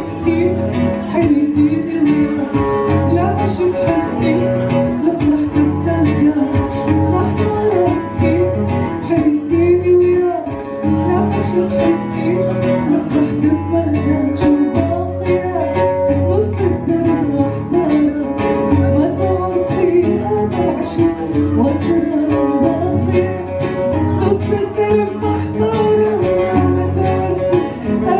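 Music with plucked string instruments, bowed strings and a singing voice.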